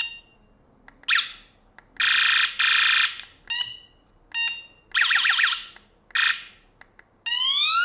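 Electronic horn of a battery-powered bicycle headlight sounded in short presses, running through its different built-in sounds: rising siren whoops, a harsh buzzing blare, quick beeps and a warbling tone, each lasting about a second or less with short gaps between.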